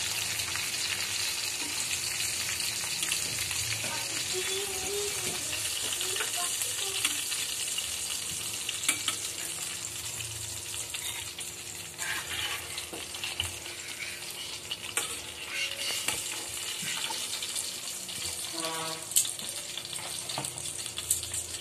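Chicken pieces sizzling as they fry in butter in an enamel pan, the sizzle easing gradually after the heat is turned down. Metal tongs click against the pan now and then as the pieces are picked up and lifted out.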